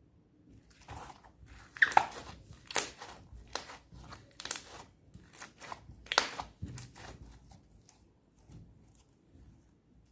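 Clear slime mixed with sand being squeezed and kneaded by hand, giving a run of sharp crackles and pops, loudest about two seconds in and again about six seconds in, then thinning out.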